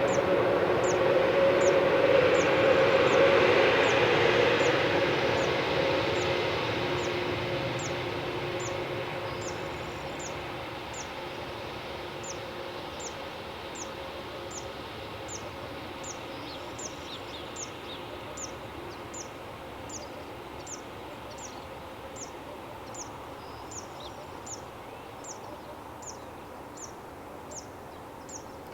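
Airbus A321neo jet engines, loud at first and fading away over several seconds. Behind them, a short high chirp repeats evenly about one and a half times a second.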